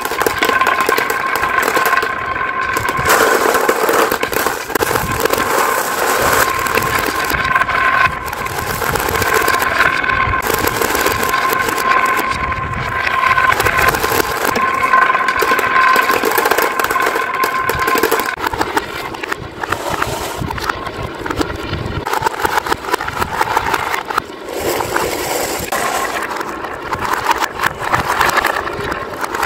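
Many glass marbles rolling and rattling through grooves carved in wooden boards, a continuous clattering full of small clicks as they knock against the wood and each other, with a steady ringing tone underneath until about eighteen seconds in. Near the end marbles swirl in a wooden bowl and drop clacking into a plastic toy dump truck bed.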